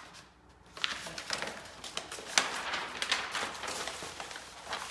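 Large paper calendar sheets rustling and crinkling as they are handled and smoothed flat on a table, in uneven bursts with a sharp crackle now and then, after a brief lull at the start.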